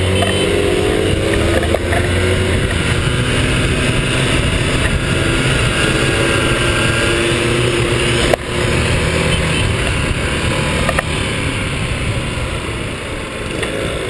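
Small scooter and motorcycle engines running as a group rides along, heard from a camera mounted on one of the bikes, with a steady low engine hum under a broad rushing noise. A sharp knock comes about eight seconds in.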